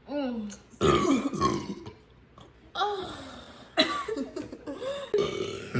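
A person burping, a string of short belches with brief pauses between them.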